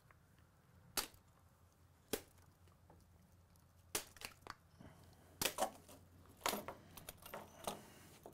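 Orange plastic busbar cover and its metal bus bars being worked loose from the clips on a Nissan LEAF battery module stack: a scattered series of sharp plastic snaps and clicks as the clips let go, coming more often in the second half.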